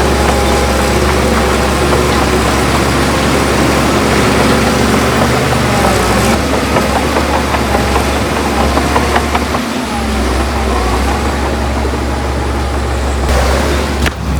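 Diesel engine of heavy earthmoving machinery running steadily with a loud low hum, briefly dipping a little under ten seconds in.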